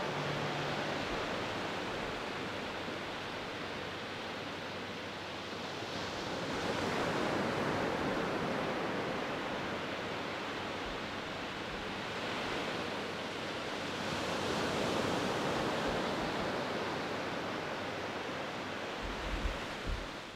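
Sea surf on a beach: waves washing in with a steady rush that swells and eases slowly, with a few low thuds near the end.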